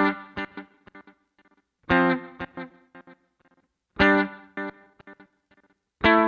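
Electric guitar through a Valeton GP-200 multi-effects processor with distortion. A chord is struck about every two seconds, four times, and each is followed by a string of short, choppy repeats that fade away.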